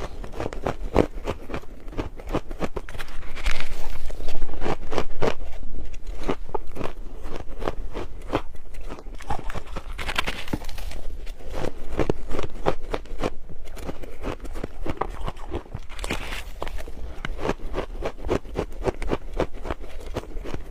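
Ice being bitten and chewed: a dense run of crisp crunches and cracks that keeps going with short pauses.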